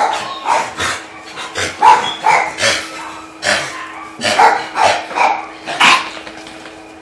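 Shelter dogs in kennel pens barking, about a dozen sharp barks at an irregular pace, over a faint steady hum.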